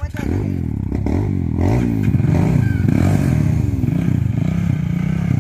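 Small street motorcycle's engine revved over and over at a standstill: its pitch climbs and drops about once a second as the throttle is blipped.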